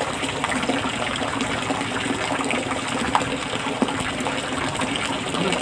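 Steady rush of running water, with a low steady hum beneath it.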